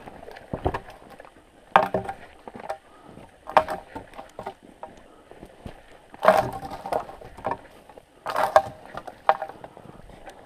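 Footsteps crunching through snow, with irregular louder crunches every second or two.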